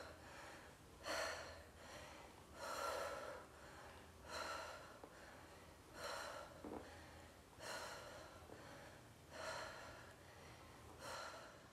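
A woman's heavy breathing from exertion: seven breaths, one about every second and a half, in time with each rep.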